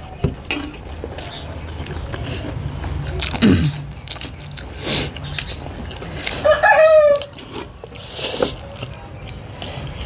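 Close-up eating sounds: a person chewing and biting into a meal of pork and rice, with small clicks and smacks. About six and a half seconds in there is a short pitched call, under a second long.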